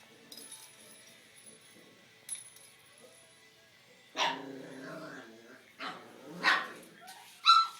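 A pet animal calling out four times in short, loud bursts in the second half, after a few faint clicks.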